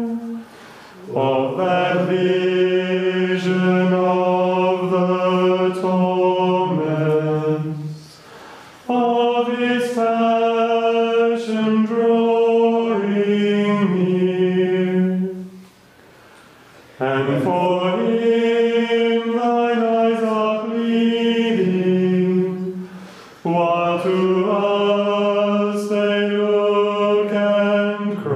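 Plainchant sung unaccompanied by male voices in unison. It comes in four long phrases held mostly on level notes, with a short breath between them.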